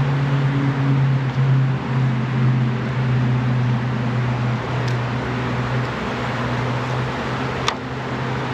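Mass of honey bees buzzing loudly as a steady, low hum.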